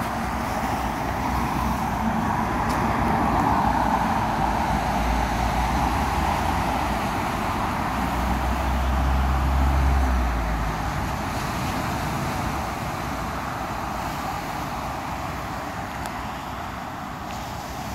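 Road traffic passing on a street, a steady rushing hiss with a low rumble that swells twice, around three to four seconds in and again around nine to ten seconds in.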